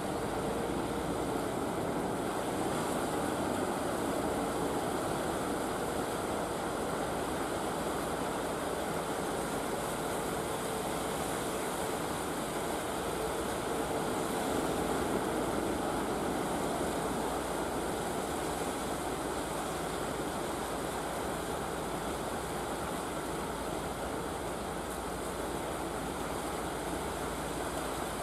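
Steady wash of ocean surf breaking on the shore, with wind buffeting the microphone. A faint steady hum runs under it through the first half.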